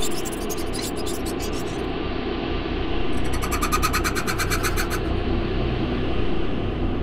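Night ambience: crickets trilling in rapid even pulses, a short bout at the start and a stronger one about three seconds in, over a low steady rumble.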